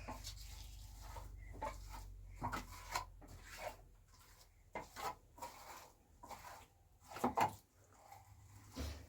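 Irregular light knocks and scrapes, about a dozen, the loudest pair about seven seconds in, over a low hum that fades out about halfway.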